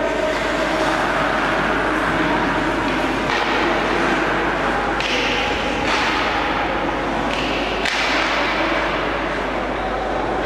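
Hockey skate blades carving and scraping on rink ice, with several sudden scraping strokes and knocks, the sharpest a few seconds in and near the middle.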